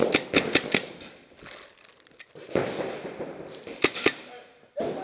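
Paintball markers firing: a rapid string of about five shots in the first second, then two more shots about four seconds in, with an echo off the metal walls of an indoor arena.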